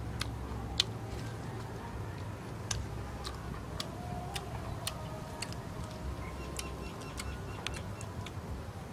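Scattered sharp clicks at irregular intervals, a few a second, over a low steady rumble.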